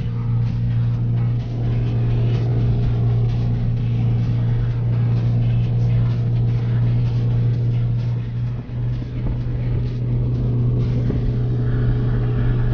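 Car engine and road noise at steady motorway cruising speed, heard from inside the cabin as a constant low drone, with a brief dip about two-thirds of the way through.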